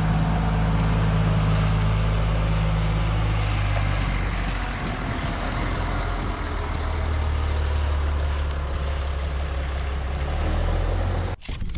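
Heavy wrecker's diesel engine running steadily as it tows a broken-down truck, its low note shifting lower about four seconds in.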